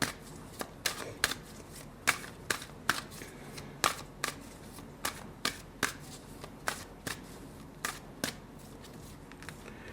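Tarot cards being shuffled and handled by hand: a string of sharp card clicks and snaps, roughly two a second, at an uneven pace.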